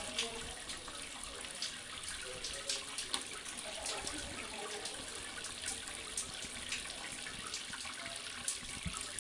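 Steady water-like hiss with scattered sharp drips and ticks.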